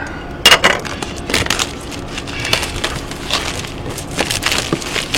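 Packaging being torn and crumpled open by hand: an irregular run of crackles and snaps, the loudest about half a second in.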